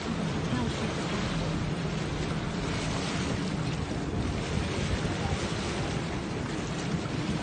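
Wind buffeting the microphone and water washing past a moving lake boat, a steady rushing noise.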